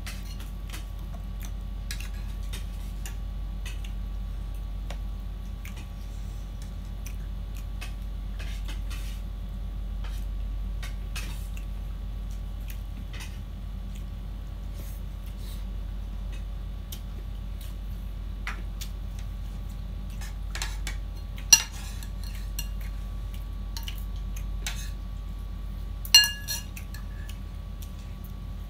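Metal fork and spoon clinking and scraping against plates and bowls, many small clicks with two sharp ringing clinks past the middle.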